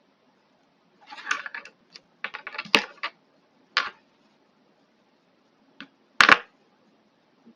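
Small hard objects clicking and clattering as they are handled and set down on a work surface: a few rattly bursts, a single click, and a sharp, louder double knock near the end.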